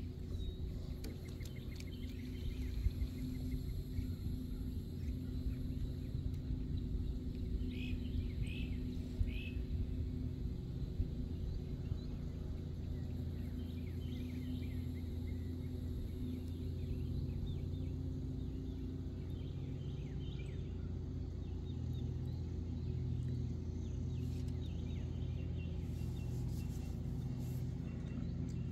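Outdoor ambience: a steady low rumble with a faint low hum, and a few short high bird chirps about eight to ten seconds in and again later.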